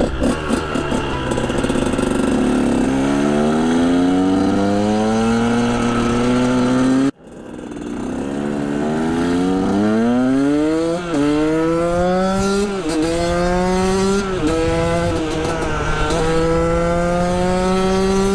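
KTM 125 SX single-cylinder two-stroke engine under hard acceleration, its pitch climbing through the gears and dropping back briefly at each upshift. The sound cuts out sharply about seven seconds in, then builds again through several more rising shifts.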